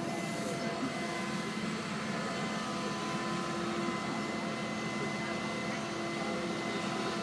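Hydraulic excavator's diesel engine running steadily while the boom and bucket are worked, with a steady whine held over the engine noise.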